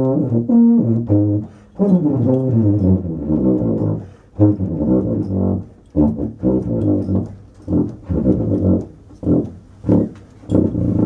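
Low brass instruments playing a jazz line: a run of connected notes, then from about six seconds in short detached notes with brief gaps between them.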